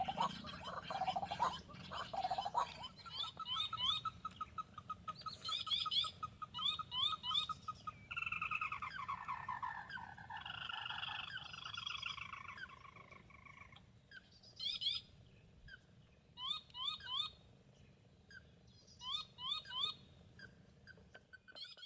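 Several wild birds calling and singing. A fast run of repeated notes comes a few seconds in, then a falling warbled song, then short rising chirps in twos and threes.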